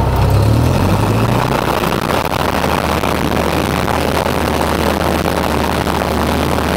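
Cessna 172's piston engine and propeller running, heard from inside the cabin as a loud, steady drone. Its note shifts up slightly during the first second or so, then holds steady.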